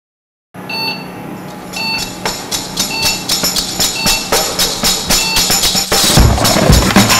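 Silence for about half a second, then a music track starts: percussion with a steady beat, becoming fuller and louder, with heavy bass drum, about six seconds in.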